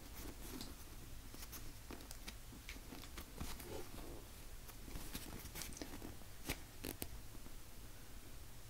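Faint rustling and scattered soft clicks of hands squeezing and turning a Puni Maru jumbo coffee bun squishy, a soft foam toy.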